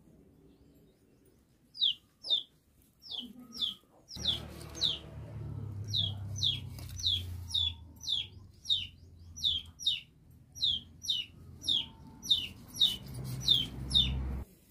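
Young chicken chick peeping: short, high peeps that slide down in pitch, repeated about twice a second, with a low steady rumble behind from about four seconds in.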